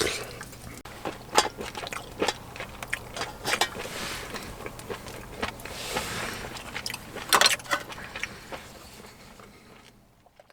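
Irregular light clicks, knocks and clatters of things being handled, dying away near the end.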